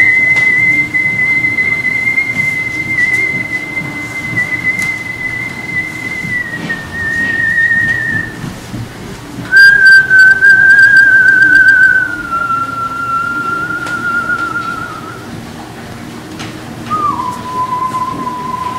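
A man whistling long held notes. The first, high note is held about six seconds and then steps slightly lower. After a short pause a lower, wavering note slides down in steps, and near the end a still lower note is held steady, each phrase pitched below the one before.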